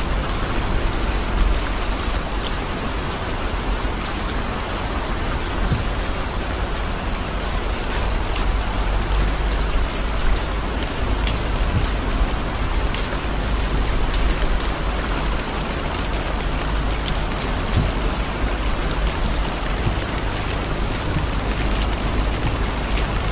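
Heavy rain falling on a car's windshield and body, heard from inside the moving car: a steady hiss dotted with sharp drop hits, over a steady low rumble.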